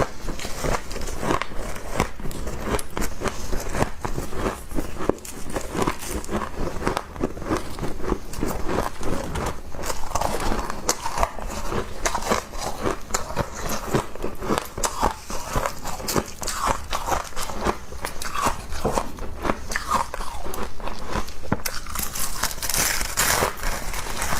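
Close-up crunching and chewing of mouthfuls of frost, icy flakes breaking between the teeth in quick, irregular crunches.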